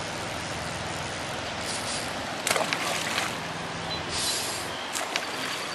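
Steady rush of creek water, with a few sharp splashes in the second half as a fish thrashes at the surface.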